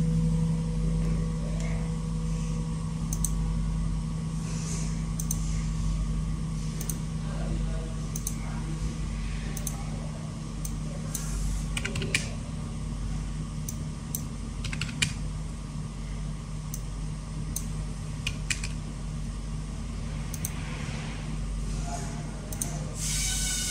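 Computer mouse clicking at irregular intervals, some as quick double-clicks, over a steady low electrical hum.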